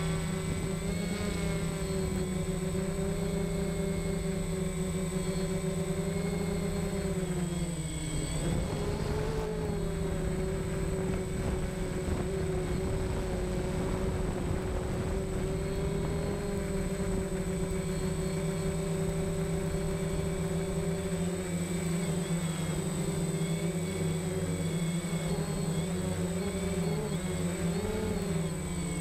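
DJI Phantom quadcopter's motors and propellers buzzing steadily in flight, heard close up from the GoPro Hero 4 mounted on it. The pitch dips briefly about eight seconds in and wavers near the end.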